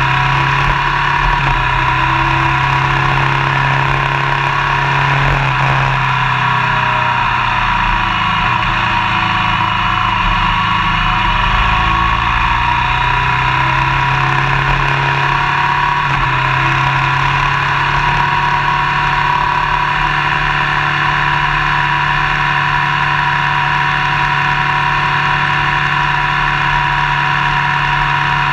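Motorcycle engine running at a steady cruise under a constant rush of wind and road noise. The revs drop away about six seconds in and build back up about ten seconds later.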